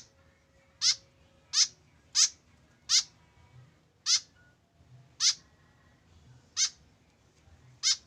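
White-breasted woodswallow (kekep babi) giving short, sharp single calls, each falling quickly in pitch, about eight times at uneven intervals of roughly a second.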